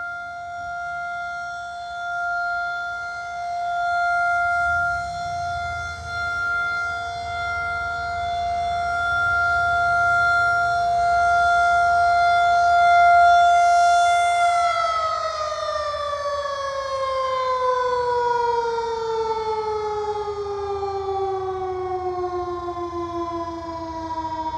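Federal Signal 2001-SRN electromechanical outdoor warning siren sounding a steady single tone, its loudness swelling and easing slowly as the rotating head sweeps around. About fourteen seconds in it is shut off and begins winding down, the pitch falling smoothly as the rotor slows.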